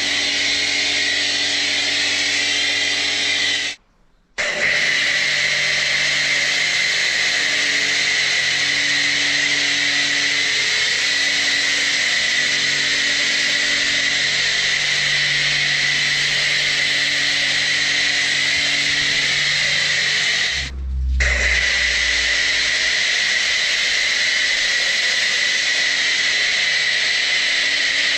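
Big Boi WashR Flo pressure washer running, its pump whining steadily under the hiss of the foam cannon spraying snow foam. It cuts out briefly about four seconds in, and there is a short dip with a low thump a little past two-thirds of the way through.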